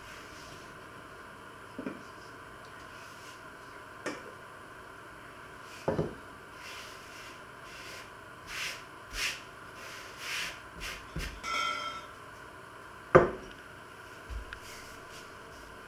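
Scattered kitchen clatter: a glass pot lid and a small metal saucepan set down on a wooden board, a few separate knocks with the loudest about thirteen seconds in, and short scraping and rustling sounds in between.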